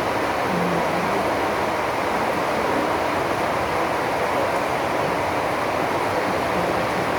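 Drizzling rain falling, a steady even hiss that does not change.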